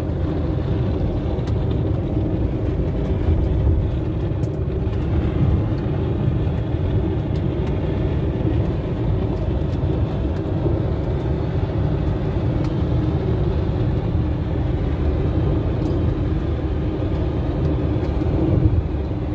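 Steady road and engine noise heard from inside a moving car's cabin, a continuous low rumble with a faint hum.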